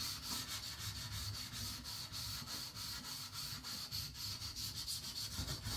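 A carbon-steel knife blade being stroked back and forth on a whetstone, a steady gritty rasping in quick, even strokes, several a second.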